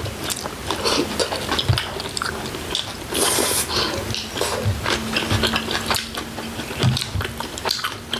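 Close-miked eating sounds of a bulgogi hotpot with wide glass noodles: wet chewing, a short slurp about three seconds in, and many small clicks of spoons and chopsticks against bowls.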